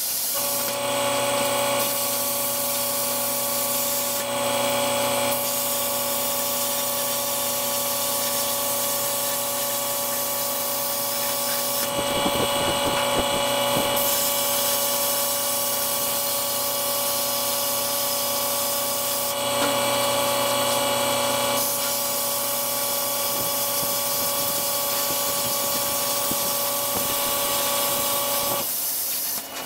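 Plasma cutter cutting through the welds of a steel loader bucket: a steady hiss of the cutting arc and air over a steady whine from the machine. The hiss shifts briefly a few times, and the sound stops shortly before the end.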